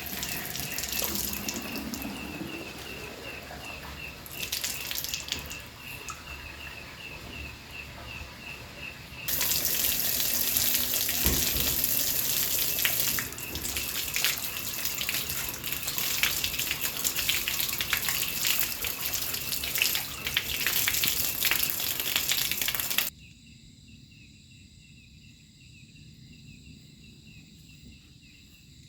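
Steady rush of running water, loudest through the middle, with insects chirping in a regular pulse behind it. The water cuts off abruptly near the end, leaving only the faint insect chirping.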